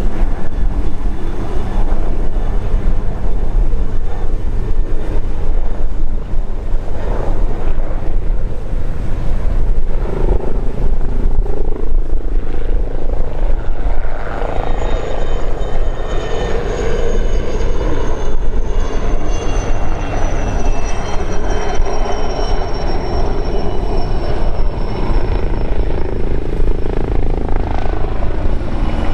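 Helicopter in display flight: steady rotor and turbine noise. From about halfway a high turbine whine comes in and slowly falls in pitch as an AgustaWestland AW139 passes close.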